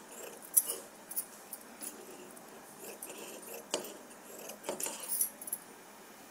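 Scissors cutting through cotton shirt fabric, with irregular sharp snips and clicks of the blades.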